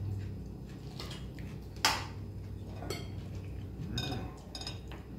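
Metal cutlery clinking and scraping against ceramic bowls and plates while people eat. A sharp clink comes about two seconds in, and a few ringing clinks follow near the four-second mark.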